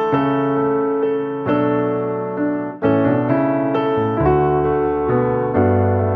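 Slow piano music, single notes and chords struck about every second and left ringing.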